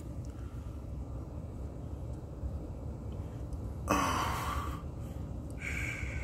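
A breathy exhalation about four seconds in, lasting about a second, and a shorter one near the end, over a steady low rumble.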